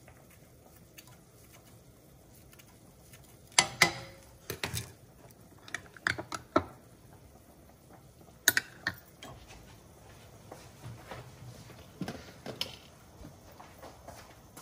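Kitchen things being handled and set down: after a quiet start, a run of separate sharp knocks and clatters from about three and a half seconds in, loudest near the start of the run and again about eight and a half seconds in, with softer knocks toward the end.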